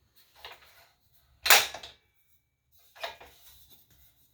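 Metal parts of a folding miter saw stand being handled: a brief soft scrape, then a loud sharp clack about a second and a half in and a second, rattling knock about three seconds in.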